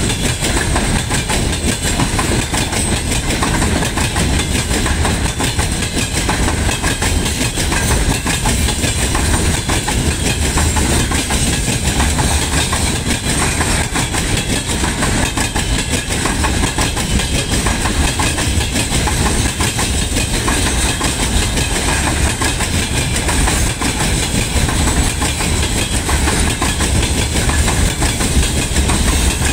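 Freight train of open-top gondola wagons rolling past at close range: a steady rumble of steel wheels on rail with a rapid run of clicks and knocks as the wheelsets cross rail joints.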